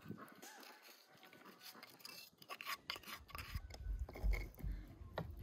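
Hands handling a raw duck and green apple slices in a wooden bowl: soft rubbing and light clicks, with low knocks from about three seconds in.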